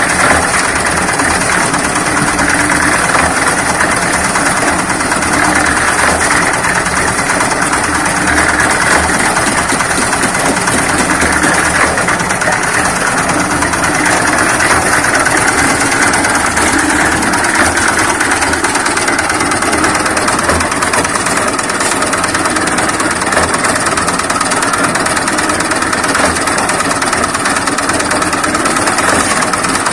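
Small diesel engine of a portable concrete mixer running steadily as it turns the mixing drum.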